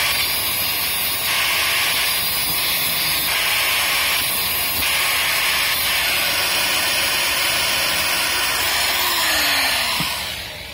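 Angle grinder grinding a repaired steel dough hook from a dough mixer. It makes a steady high-pitched noise that brightens in stretches as the disc bears on the metal, then dies away near the end.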